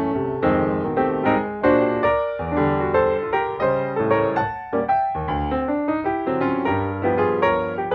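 Piano music: a melody of struck notes, about two a second, each fading after it is struck.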